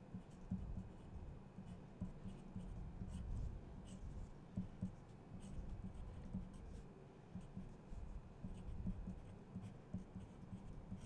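Pencil writing on paper: faint, irregular scratching with light taps as numbers and brackets are written out.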